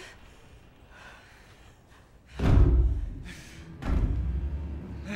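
Two heavy thuds about a second and a half apart, the first the louder, each carrying a deep low boom that rumbles on briefly.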